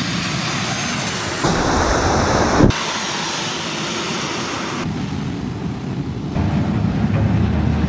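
Jet engine noise from a Boeing 737-800's CFM56 turbofans at close range, a steady roar spread across the range. A louder stretch starts about a second and a half in and cuts off sharply near three seconds, and the sound changes abruptly twice more later on.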